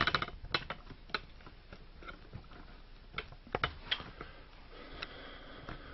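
Scattered clicks and light knocks of hands handling equipment at close range, a few sharp ones near the start and another cluster about three and a half seconds in.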